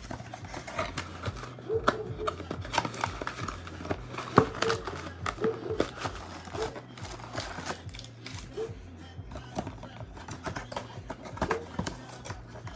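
Cardboard trading-card box being torn open and handled, with foil-wrapped card packs rustling as they are slid out: a run of short sharp clicks and crinkles.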